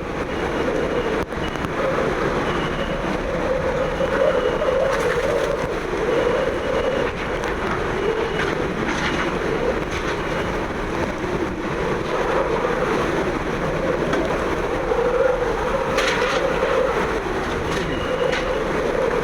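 Hurricane-force wind from the eyewall of Hurricane Idalia blowing hard and steadily, with a deep rumble like a train, and a faint high whistle that comes and goes.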